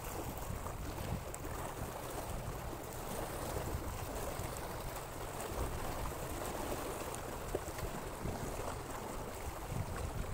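Steady wash of choppy water lapping against the shore.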